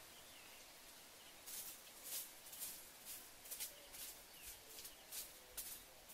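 A person working the forest floor by hand: irregular rustling and scraping strokes in dry leaf litter and soil, starting about one and a half seconds in, with faint bird chirps in the background.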